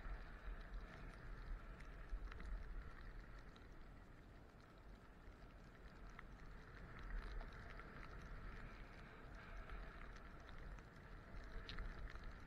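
Skis sliding and scraping over snow on a downhill run: an even hiss with scattered light clicks, easing off briefly a few seconds in. A low rumble of wind on the microphone runs underneath.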